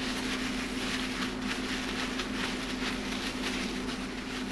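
Plastic bag rustling and crinkling as chicken pieces are squeezed and shaken in seasoned flour, over a steady low hum.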